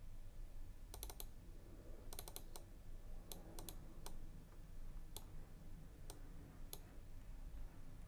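Faint, scattered clicks of a computer mouse, some in quick pairs and triples, about a dozen in all, over a low electrical hum.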